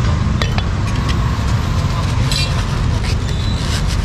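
Steady street traffic rumble, with a few short sharp knocks over it.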